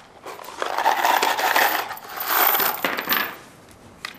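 Cordless drill-driver driving a SPAX full-thread wood screw through a metal post-base fitting into a wooden pillar, in two runs of about a second each with a short break between.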